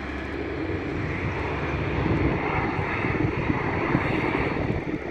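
Twin-engine turboprop airliner landing on the runway: engine and propeller noise, growing louder over the first two seconds and then holding steady.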